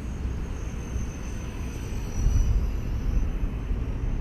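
Electric 230S RC helicopter flying at a distance, its motor and rotors giving a thin high whine that wavers slightly in pitch. A low wind rumble on the microphone is the loudest sound and grows stronger about halfway through.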